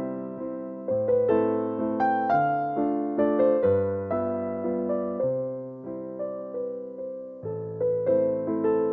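Slow, gentle solo piano music: a melody of struck notes, each fading away, over low bass notes that change every second or two.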